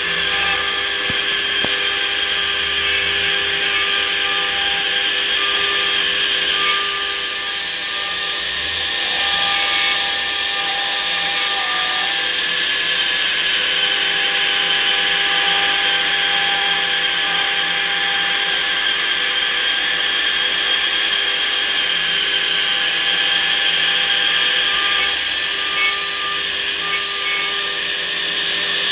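Water-cooled brushless CNC router spindle running with a steady whine as its cutter carves into a slice of log, wood chips hissing into the spindle-driven passive dust shoe. Short higher-pitched whirs come and go a few times.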